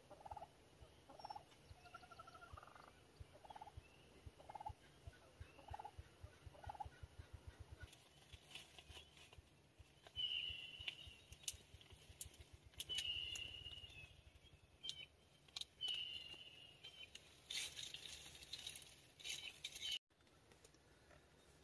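Wild turkeys calling faintly: a run of short, evenly spaced calls, then from about ten seconds in several louder, rattling gobbles about three seconds apart, with a few sharp clicks and a short rustle near the end.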